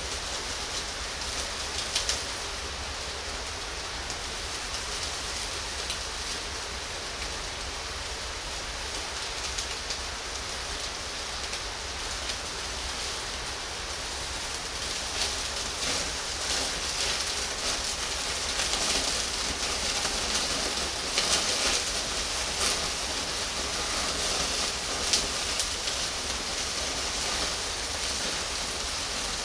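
Pork belly sizzling on a grill over charcoal: a steady hiss with scattered pops and crackles that grow busier and a little louder in the second half.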